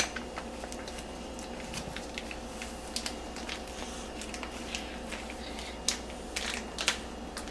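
Scattered light clicks and rustles of hands handling pepperoni slices while topping a pizza, over a faint steady hum; a couple of the taps near the end are more distinct.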